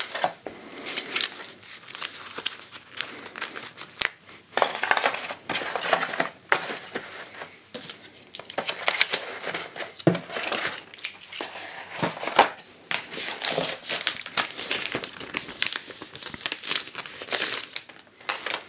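Plastic packaging crinkling and rustling with irregular sharp crackles, as a new tablet is handled and unpacked from its box tray.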